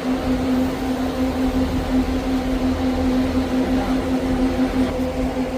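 Steady machine hum at one constant pitch over a low rumble, from a running motor or engine.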